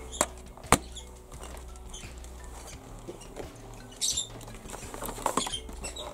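Plastic Polly Pocket compact case snapped shut with two sharp clicks, followed by light clatter of plastic toy pieces and a brief rustle of plastic packaging.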